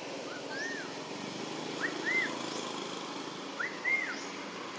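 A bird calling three times, about every second and a half: each call a short rising note followed by an arched whistle, over a steady background hiss.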